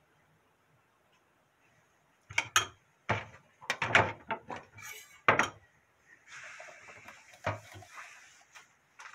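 Kitchen handling noise: a quick run of sharp knocks and clatters of things set down and moved, then soft rubbing as the salad plate is lifted and carried.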